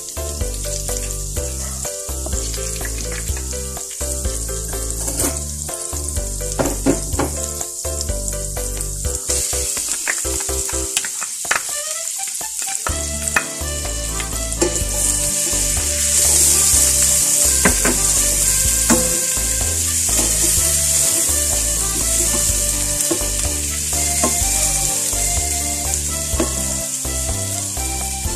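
Butter sizzling as it melts in a stainless steel pan, with occasional clicks of a utensil against the pan. About halfway through, minced garlic goes in and the frying sizzle grows louder and stays strong.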